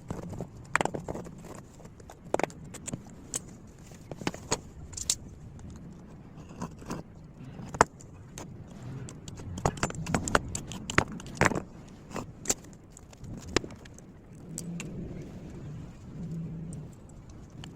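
Irregular metallic clinks and knocks of metal pieces and tools being handled, over a low steady hum.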